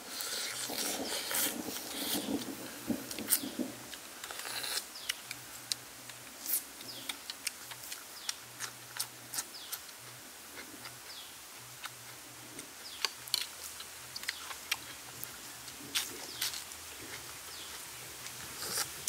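A person sucking cooked snail meat out of its shell with a noisy slurp for the first few seconds, then chewing with many irregular small wet clicks and smacks.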